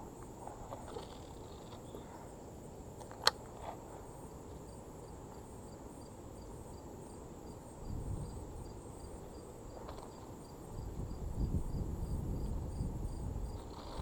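Crickets chirping steadily at a regular beat, with a single sharp click about three seconds in and low rumbling noise in the second half.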